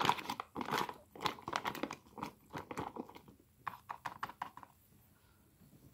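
A spork stirring boiling water into freeze-dried chili mac inside a foil-lined Mountain House pouch: the pouch crinkles and the spork scrapes and clicks irregularly, thinning out and stopping about four and a half seconds in.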